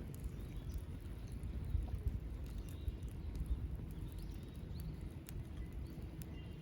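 Wood fire crackling in a small folding fire pit: irregular sharp pops and snaps over a steady low rumble.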